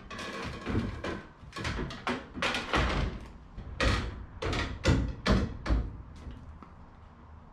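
A quick, irregular series of sharp knocks and bangs on hard material, about a dozen over six seconds, each with a short ring, then quieter near the end.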